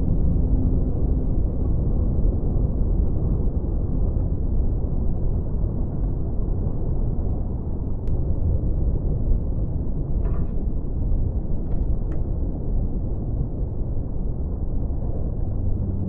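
Underwater ocean ambience: a steady, muffled wash of deep water noise, with a few faint clicks about two-thirds of the way through.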